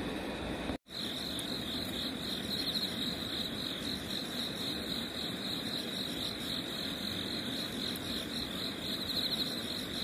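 Crickets chirping at night in a continuous high trill, over a faint even hiss; the sound cuts out briefly about a second in and then carries on.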